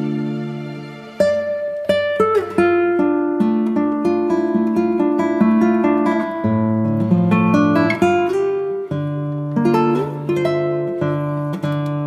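Background music on acoustic guitar, with plucked notes and strummed chords. It fades briefly and starts a new phrase about a second in.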